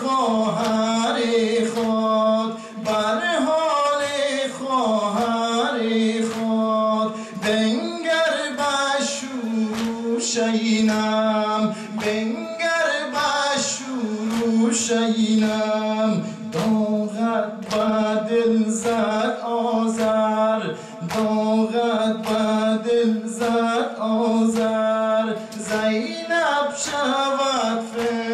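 Men chanting a Dari Muharram nawha (lament) together over a steady held low tone, with regular hand slaps of chest-beating (matam) keeping time.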